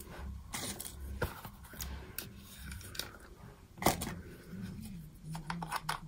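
Handling noises from a glass fountain-pen ink bottle and its cap: scattered clicks, taps and rustles, with one sharp click about four seconds in.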